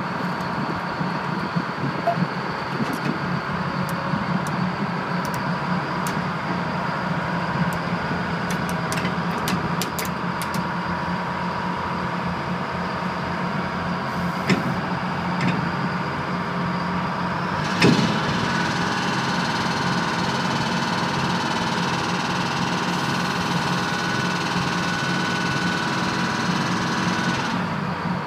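Tugboat's diesel engine running steadily, a drone with several steady tones. Scattered light clicks come in the first ten seconds, and a single knock about eighteen seconds in, after which the drone is a little louder.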